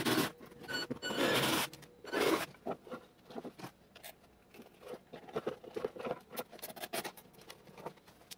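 Cordless drill run in three short bursts, then clear plastic fuel tubing being handled and pushed into place, with scattered small scratches and clicks.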